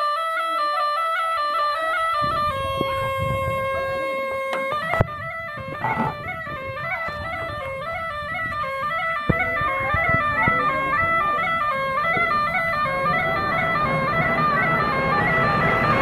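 Snake charmer's gourd pipe (pungi) playing a wavering, reedy melody over a steady drone. Two short knocks come about five and nine seconds in.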